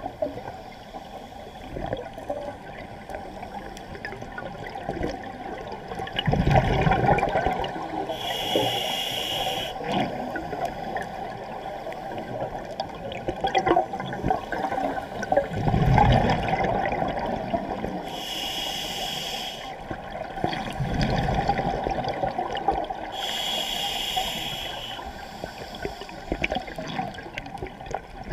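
Scuba diver breathing through a regulator underwater: three slow breaths, each a rumbling burst of exhaled bubbles followed by the hiss of an inhalation through the demand valve.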